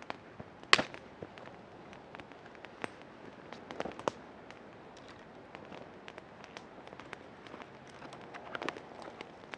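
Wood campfire crackling with irregular sharp pops; the loudest pop comes about three quarters of a second in, with a few more around four seconds and near the end.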